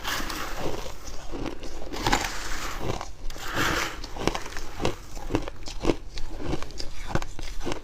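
Close-miked biting and chewing of fluffy freezer frost: dry, crackling crunches, with a few bigger bites in the first half and quicker, sharper crunches about twice a second after.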